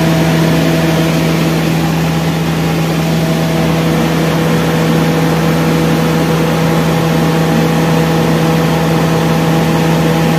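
Cummins diesel generator set running steadily at rated speed, a loud even drone with a strong constant hum.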